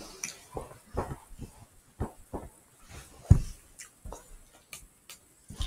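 A string of irregular soft knocks and bumps, the loudest a little past halfway through.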